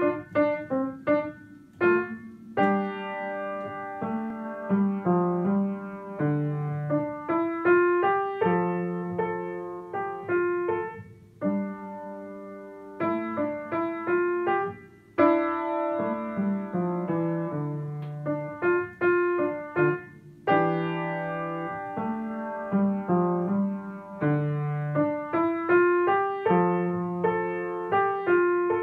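Upright acoustic piano playing a simple solo piece: struck notes and chords over a low bass line, each note fading after it is struck.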